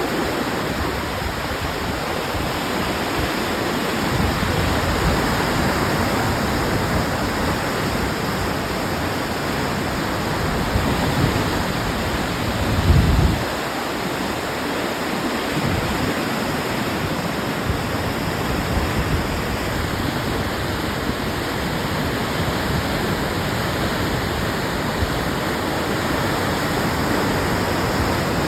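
Steady rushing of high, fast floodwater pouring through a floodway channel during a typhoon. A brief low buffet of wind on the microphone about halfway through.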